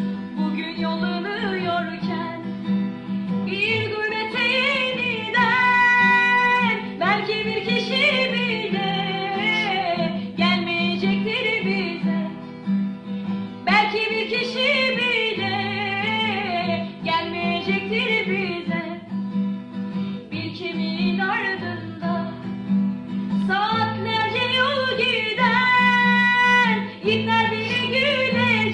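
A song: a woman's voice sings a slow melody with sliding, bending notes over acoustic guitar accompaniment.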